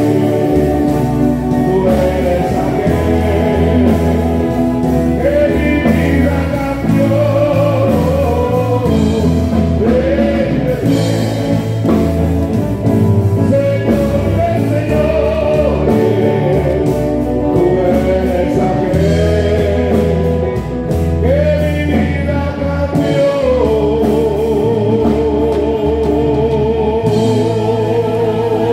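A live church band plays a gospel worship song, with a man singing into a microphone over electronic keyboard, drums and bass. Near the end a long held note wavers in a steady vibrato.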